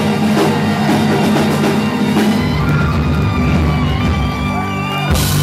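Live band with saxophone, guitars and drum kit playing; about two seconds in, the steady beat gives way to held, ringing closing notes over a low rumble, cut off by a cymbal crash near the end.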